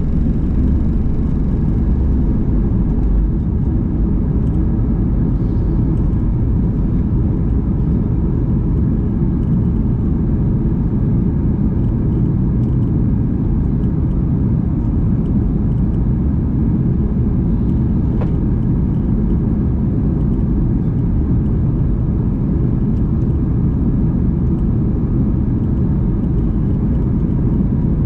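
Cabin noise of a Boeing 737 MAX 9 at takeoff, heard from a window seat behind the wing: its CFM LEAP-1B engines run at takeoff power with a steady low rumble. The rumble is heavier for the first three seconds or so while the wheels are still on the runway, then evens out into the climb.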